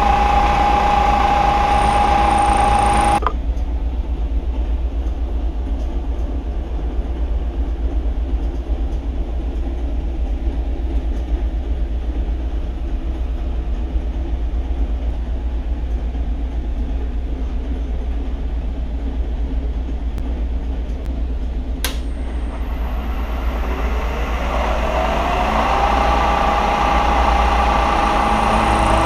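Bridgeport Series 1 variable-speed knee mill running with a steady whine from its spindle and end mill in aluminium, which cuts off about three seconds in, leaving a low steady hum. Near the end there is a sharp click, then the spindle winds back up with a rising whine and settles at a steady speed.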